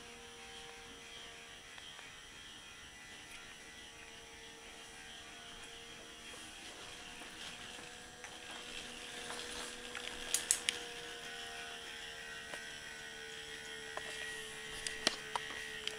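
K'nex ball machine running: its electric motor hums steadily, with a few sharp plastic clicks, a cluster about ten seconds in and several more near the end.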